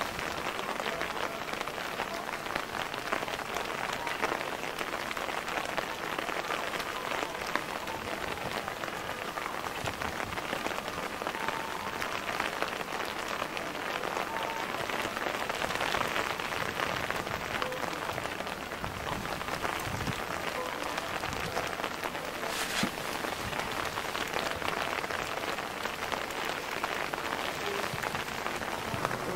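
Steady rain falling, many small drop ticks pattering over an even hiss. One sharper click about three-quarters of the way through.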